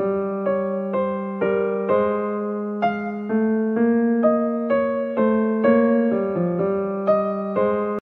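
Background music: a gentle piano melody, single notes struck about twice a second and fading, over a held low note.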